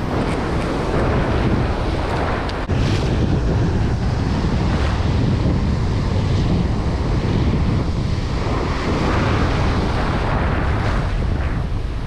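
Ocean surf breaking and washing over shoreline rocks, with heavy wind buffeting on the microphone.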